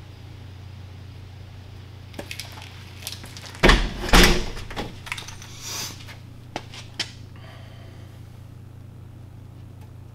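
Several sharp knocks and clanks of metal, loudest about four seconds in, as a copper head spacer is worked down over the locating dowels onto a BMW M50 engine block, the dowel needing a little persuasion; smaller clicks follow, over a steady low hum.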